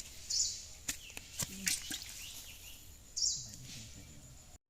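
Rural outdoor ambience: two short, high bird chirps about three seconds apart over scattered small clicks and knocks. The sound cuts out abruptly just before the end.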